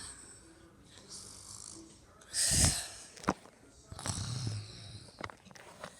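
Snoring: a loud rasping breath about two and a half seconds in, a few short clicks, then a low, drawn-out voiced 'uhhh' about four seconds in.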